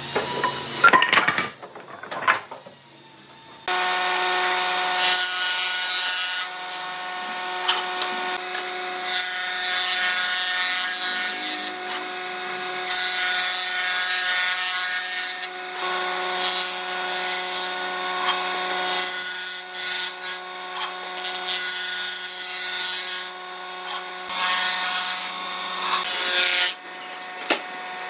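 A few wooden knocks and clatter, then from about four seconds in an old combination jointer-planer running with a steady hum, its cutter head shaving rough weathered planks. The cutting noise swells and fades as the boards pass over the cutter.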